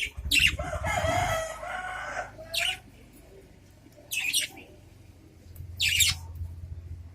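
Adult budgerigars chirping and answering each other: a burst of warbling chatter in the first couple of seconds, then single sharp chirps about four and six seconds in.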